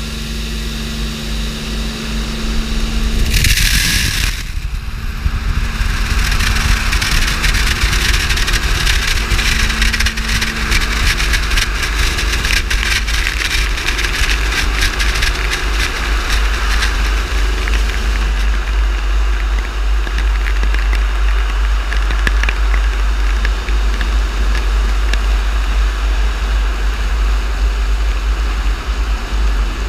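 Automatic gantry car wash working over a car: a motor hum and a brief loud hiss about three seconds in. Then water spraying and the rotating brushes slapping against the bonnet and windscreen, a dense rushing noise with many small rapid hits over a steady low rumble.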